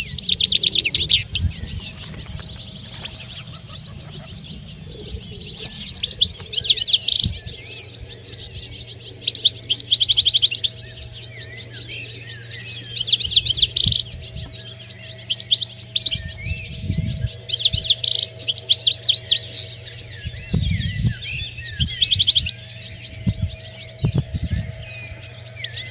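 European goldfinches twittering: bursts of rapid, high chattering song about a second long, repeating every few seconds.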